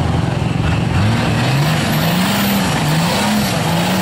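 Nissan Patrol GR's engine revving as it pulls the four-wheel drive through deep mud. The revs climb about a second in, then rise and fall repeatedly.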